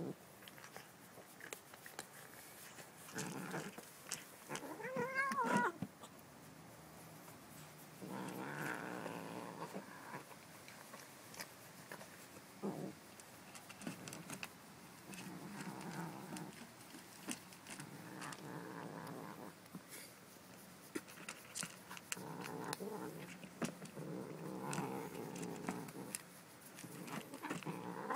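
Kitten growling over its food bowl in repeated low rumbling bouts of a second or two, with a rising-then-falling yowl about five seconds in.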